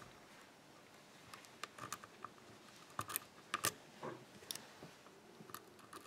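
Faint, scattered metallic clicks and scrapes of a Sparrows shallow hook pick working the pin tumblers inside the keyway of a six-pin WILKA euro cylinder lock.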